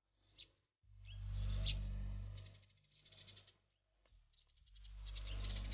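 Birds chirping and trilling in background ambience, over a low hum that swells up twice.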